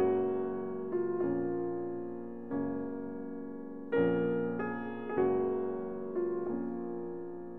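Slow piano music: single chords or notes struck about once a second, each left to ring and fade before the next.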